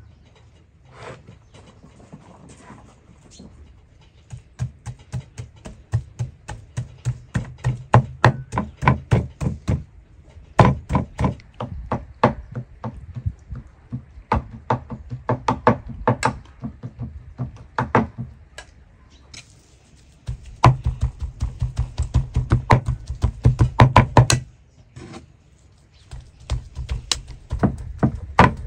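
Two knives chopping raw meat on a thick wooden cutting board, hand-mincing it: rapid, even strokes several a second, with wooden knocks. The strokes are sparse at first, come in long steady runs, and stop briefly about 25 seconds in.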